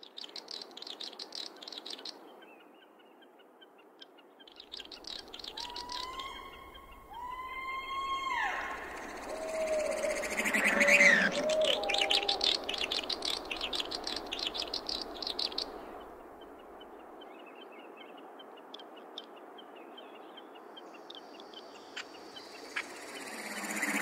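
Birds calling in a layered nature soundscape. Several rapid, high chattering trills are heard, and a few seconds in come two drawn-out calls that rise and then hold. The calls are loudest near the middle.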